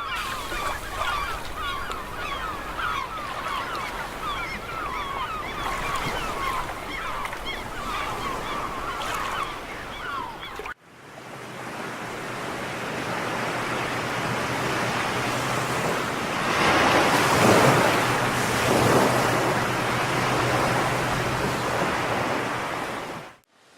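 A flock of seagulls calling, many short falling cries overlapping, for about the first ten seconds. After a sudden break, surf and wind rush on, swelling louder about two-thirds of the way through.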